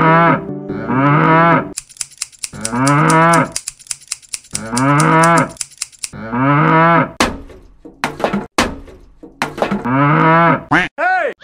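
Cattle mooing: about six calls, each roughly a second long, rising and falling in pitch. Between about two and six seconds in, a fast, even clicking runs underneath.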